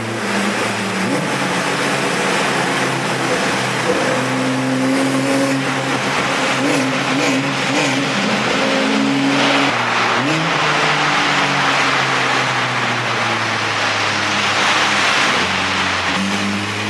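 Car driving at highway speed, heard from inside the cabin: steady road and wind noise under the engine's hum. The engine note shifts a few times and rises about ten seconds in.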